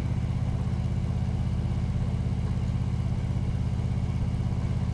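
Harley-Davidson touring motorcycle's V-twin engine running steadily while riding along, a low, even, pulsing drone.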